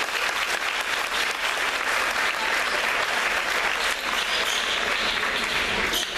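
Basketball spectators applauding: a steady clatter of many hand claps.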